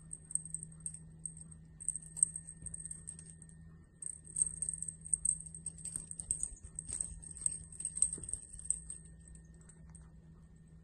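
Quick runs of light, high-pitched ticking and scratching, with a short pause about four seconds in, as a Maine Coon kitten bats at and claws a feather toy on a carpeted cat-tree platform.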